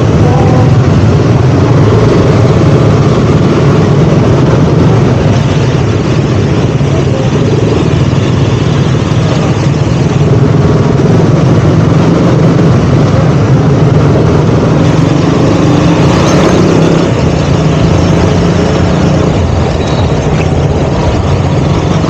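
KTM Duke 200's single-cylinder engine running steadily as the motorcycle is ridden, with no sharp revs, over a constant rush of noise.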